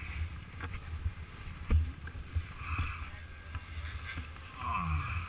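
Low rumble of wind and handling noise on a helmet-mounted camera's microphone, with scattered clicks and one sharp knock a little under two seconds in.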